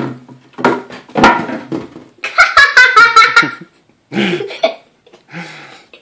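A fist punching a tub of cornstarch-and-water oobleck, giving two dull thunks in the first second or so as the mixture stiffens under the blows. A burst of laughter follows, then a few short vocal sounds.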